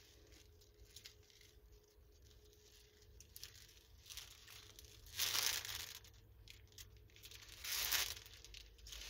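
Clear plastic packaging around a strip of diamond-painting drill bags crinkling as it is handled. It comes in a few short rustles, the loudest about five and about eight seconds in, after a few nearly quiet seconds.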